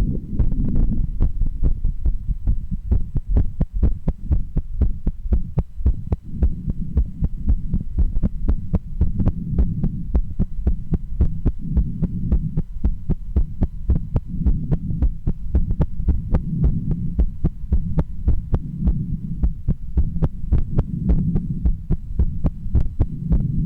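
A woman's heartbeat heard through a stethoscope, beating fast and regularly as a close run of low thumps, with a low rumble that swells and fades every few seconds.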